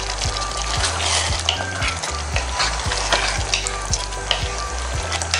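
A wooden spatula stirring thick chicken masala gravy in a granite-coated pot: repeated scraping strokes against the pan over a steady sizzle of the gravy cooking on the flame.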